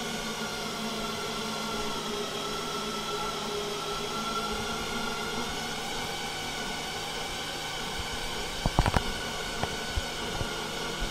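Steady machine hum with faint whining tones as a motorised X-ray imaging arm in an ion beam therapy treatment room swings away overhead. A cluster of sharp clicks comes about nine seconds in, with a few lighter ones after.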